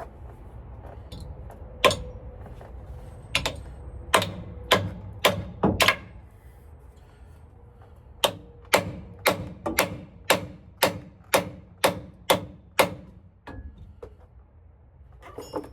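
Hand hammer blows on steel, knocking at a stuck driveshaft center bearing: a handful of uneven strikes, then about ten steady strikes roughly two a second. The part stays put; the bearing is seized on.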